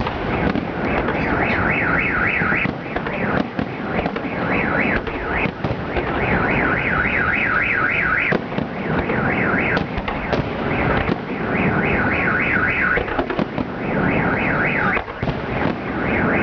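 A car alarm siren warbling in repeated runs of a fast up-and-down tone, over steady background noise. Sharp fireworks bangs go off every so often.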